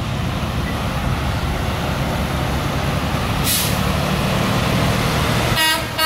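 Diesel engine of a Freightliner Cascadia semi-truck rumbling as it pulls out and turns. A short hiss comes about three and a half seconds in, and a brief air-horn toot near the end.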